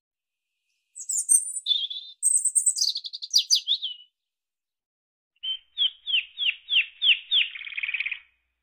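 Bird song heard with no background noise at all: a burst of high chirps and twittering, then, after a pause of about a second and a half, a run of about six quick downward-slurred whistles that ends in a short trill.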